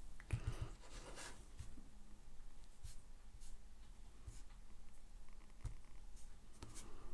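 Faint handling noise: scattered light taps and rubs of fingers on a smartphone and its touchscreen.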